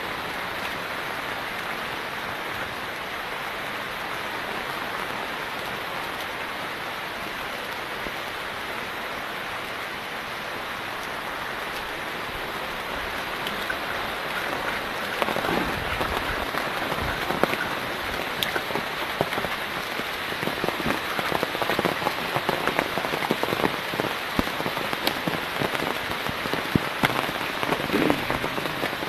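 Steady rain falling, with close raindrops pattering and splashing more loudly from about halfway through.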